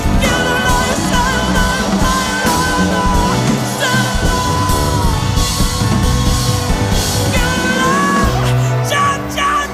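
A woman singing long, belted, wavering notes over a live rock band with electric guitar, keyboard and drums; a run of sharp drum hits comes near the end.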